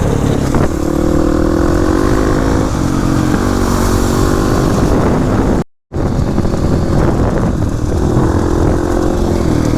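Kawasaki KLX300 single-cylinder dirt bike engine running at a steady cruising pitch as the bike is ridden. The sound cuts out completely for a moment a little past halfway.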